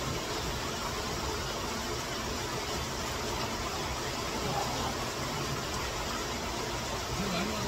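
Heavy rain falling steadily, with the rush of a swollen, flooding stream: an even, unbroken hiss.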